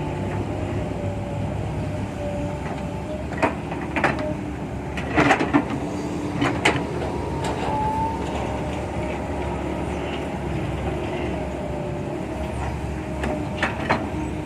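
Kobelco SK120-5 excavator working: its Isuzu diesel engine runs steadily under a hydraulic whine that wavers and glides in pitch. Several sharp metal clanks come through, a cluster about five seconds in and a couple more near the end.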